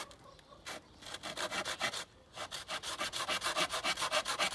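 Hand saw cutting across a thin wooden batten in quick, even back-and-forth strokes, with a short pause about two seconds in.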